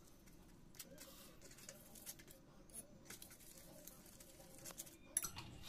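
Faint scraping and light clicks of a steel spoon spreading desi ghee over maize-flour rotis on a steel plate, with one sharper click about five seconds in.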